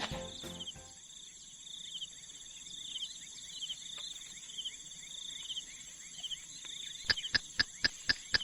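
Crickets and other insects trilling at night: steady high-pitched tones with a pulsing chirp over them. Music fades out in the first second, and near the end a rapid run of sharp clicks, about five a second, stands out above the insects.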